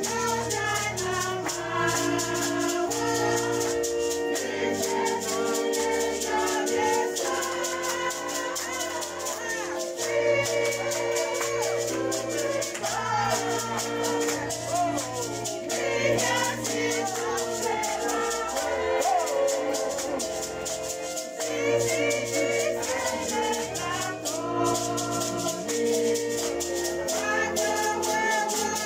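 Dance music: a shaker rattles in a steady rhythm over held chords and a stepping bass line, with voices singing.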